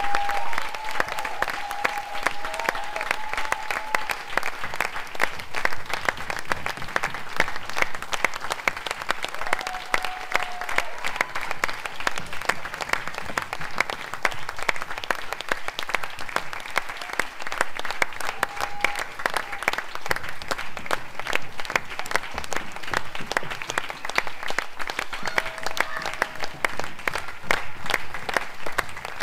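Audience applauding: dense, even clapping at a steady level.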